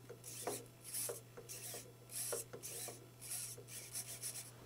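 Small radio-control servo motor on a model steam locomotive whirring in short buzzes, about two a second, as it is worked back and forth to operate the whistle valve, over a faint steady low hum.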